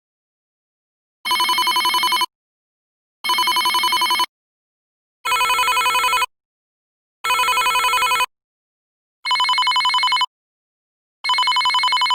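Telephone ringing: six rings, each about a second long of rapid trilling, repeating every two seconds.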